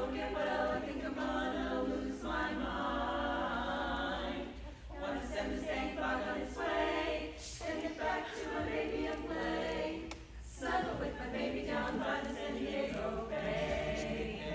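Women's barbershop double quartet of eight voices singing a cappella in close harmony, in phrases with brief breaks between them.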